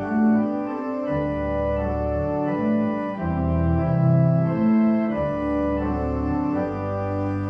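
Church organ playing a slow hymn tune with no singing: held chords that change about once a second over a deep bass line.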